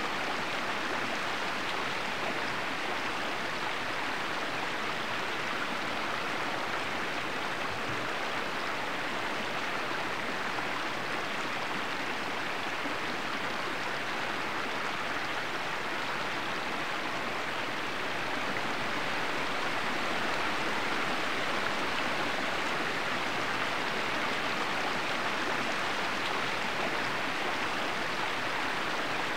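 Small woodland stream babbling over rocks in a steady, even rush of running water. It grows slightly louder about two-thirds of the way through.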